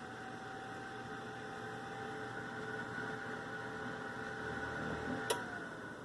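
Whirlpool convection oven's fan running with a steady hum and whir. About five seconds in there is a sharp click, and the hum then falls in pitch as the fan winds down.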